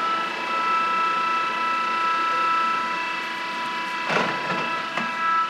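Lansing hollow spindle lathe running, its headstock gearing giving a steady high whine made of several fixed tones. A clunk about four seconds in and a shorter knock a second later.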